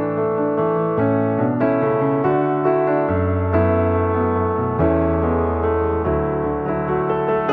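Background music: a piano or electric-piano tune with a steady pulse of notes.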